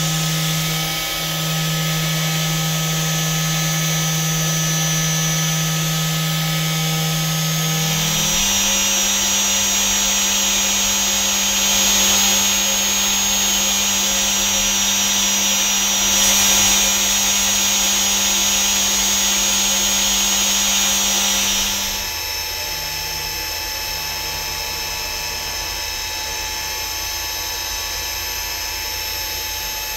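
A CNC machine spindle turns a 2 mm solid carbide micro drill as it peck-drills metal under a coolant spray: a steady machine hum and whine over coolant hiss. The pitch steps up about 8 s in, where the cut changes from cast iron to non-ferrous metal at a higher spindle speed. About 22 s in the sound drops lower and quieter for slower drilling in stainless steel.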